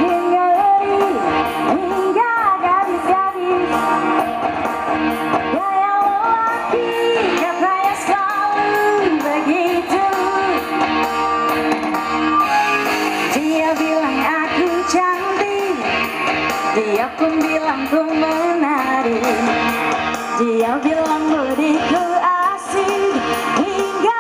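A woman singing a song with a live band: a sung melody over guitar and a steady drum beat.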